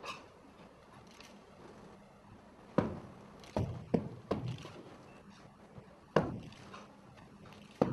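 Sharp impacts from a kung fu performer working through a Southern Shaolin praying mantis form: six sudden strikes, three in quick succession in the middle, each fading quickly in a quiet room.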